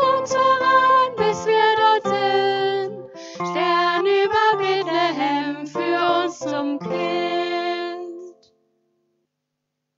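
A woman singing a song to acoustic guitar accompaniment; the song ends about eight seconds in.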